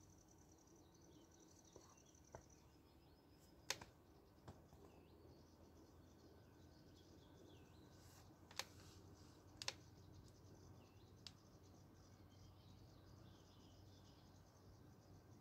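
Near silence outdoors: faint birdsong and a high insect-like trill, broken by a few sharp clicks, the loudest about four and nine seconds in.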